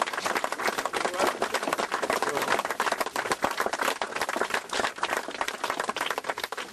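A small crowd applauding: many hands clapping steadily throughout.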